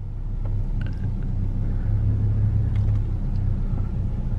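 Ford Ranger pickup's engine pulling the manual truck away from a stop in reverse, a low rumble that grows louder over the first second as the clutch is let out, then holds steady, heard from inside the cab.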